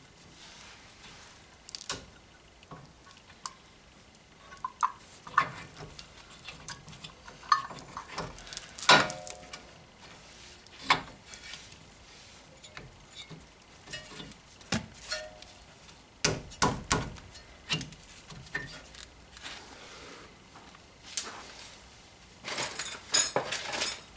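Metal clinks, knocks and scrapes as an Opel Corsa D brake caliper is worked by hand back over new brake pads and disc. The knocks are scattered and irregular, with a quick run of small clinks near the end.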